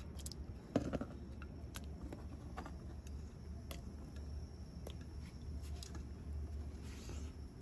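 Chopped tomatoes scraped off a metal plate into a pot of water, with a short clatter and splash about a second in. A steady low hum and a few faint scattered ticks follow.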